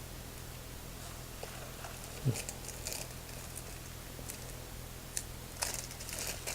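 Faint handling noise of packaging and small accessories: scattered light clicks, a soft thump about two seconds in, and paper or plastic crinkling near the end, over a steady low electrical hum.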